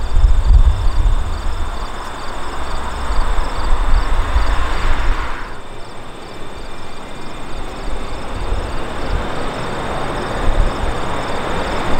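Jet noise from the four Pratt & Whitney F117 turbofans of a Boeing C-17 Globemaster III on approach. It builds, drops away abruptly about five and a half seconds in, then builds again. Wind rumbles on the microphone and insects chirp steadily.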